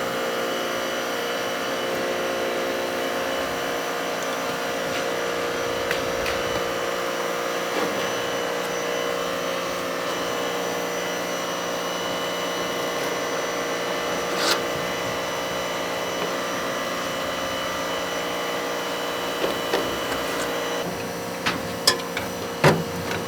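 Steady whirring of a motor-driven workshop machine running continuously, with a few faint knocks along the way. It stops about 21 seconds in.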